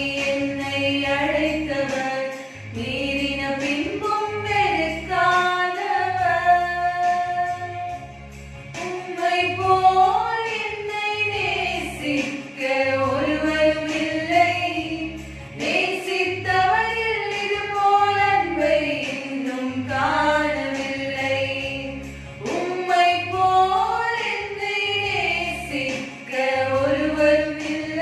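Two women singing a Tamil Christian devotional song together, one into a handheld microphone, over an accompaniment with a steady low beat about once a second.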